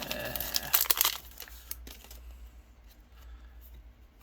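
Yu-Gi-Oh booster pack wrapper being torn open and crinkled, loudest about a second in and dying away after about two seconds, followed by a few faint rustles and clicks.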